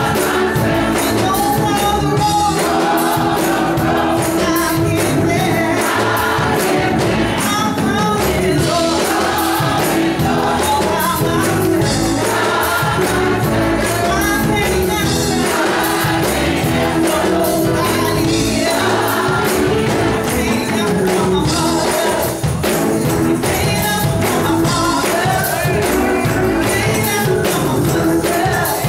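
Gospel choir and a woman lead singer performing an upbeat gospel song, with a steady percussive beat under the voices.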